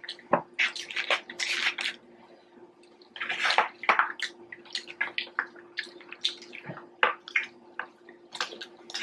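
Close-miked wet chewing and mouth sounds of people eating, coming in clusters of crackly, smacking clicks with a short pause between them. A faint steady hum runs underneath.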